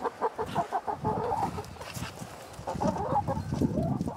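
Backyard hens clucking in quick runs of short clucks, one run in the first second and a half and another about three seconds in.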